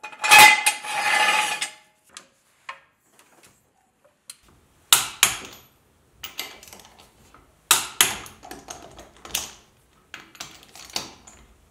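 Torque wrench and socket tightening the wheel lug nuts: a series of sharp metallic clicks and clinks, several in quick pairs, starting about five seconds in. They follow a louder mechanical noise of about two seconds at the start.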